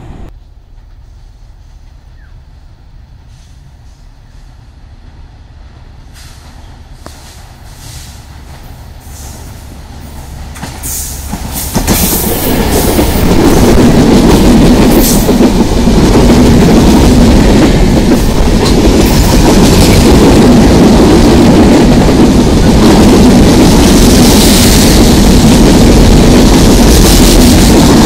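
A passenger train's coaches approaching and then running close past on jointed track. A faint low rumble grows with scattered clicks, and from about twelve seconds in becomes a loud, steady rumble of wheels on rails with a clickety-clack.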